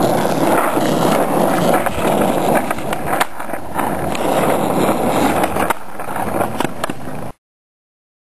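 Skateboard wheels rolling with a steady rumble, broken by a few sharp clacks of the board. The sound cuts off abruptly to dead silence about seven seconds in.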